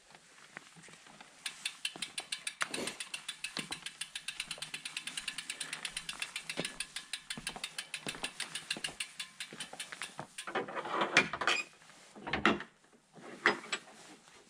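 Road bike's rear freehub ticking rapidly and evenly as the bike is wheeled along by hand, coasting. About ten seconds in the ticking stops and gives way to a few louder knocks and rattles and a dull thump.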